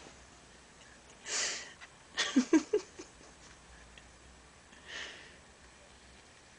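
Soft breathy laughter: an exhale, then a short run of quiet chuckles about two seconds in, and another breath near five seconds.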